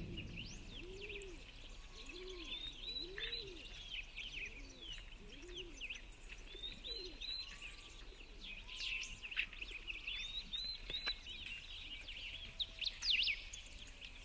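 Woodland birdsong: several small birds chirping and trilling high up, with a lower bird's hooting call repeated about once a second through the first half.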